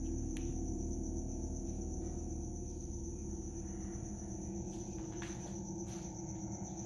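Crickets trilling steadily and high-pitched, over a low steady hum, with a few faint clicks.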